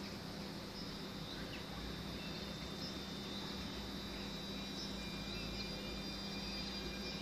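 Quiet railway station ambience: a steady low hum and a thin, steady high-pitched whine, with a few faint short bird chirps.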